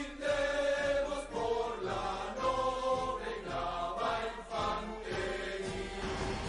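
Background music: a choir singing in chorus.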